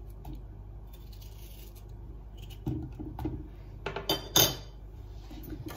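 Quiet scraping of a kitchen knife peeling a tomato over a pot, then a few soft knocks. About four seconds in, a sharp clatter comes as the metal knife is set down on a plate.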